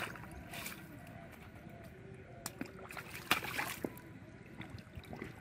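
Hands splashing in shallow muddy water while grabbing a large eel-like fish, with a few sharp splashes, the loudest about three seconds in.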